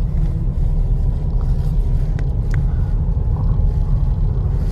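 Steady low rumble of a car driving along a street, heard from inside the cabin: engine and tyre noise.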